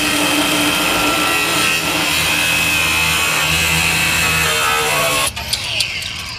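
Cut-off wheel grinding through a steel strip: a steady high whine over a gritty hiss. About five seconds in it comes off the metal and the wheel winds down.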